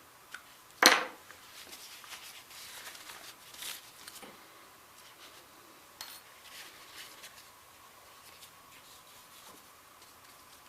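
Metal parts of a powder-actuated tool clinking and being handled during reassembly. There is one sharp metallic clink about a second in, then a few fainter clicks and light handling noise.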